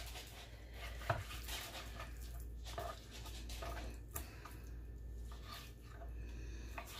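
Knife slicing raw chicken breast into cubes on a wooden cutting board, with soft, irregular taps of the blade against the board.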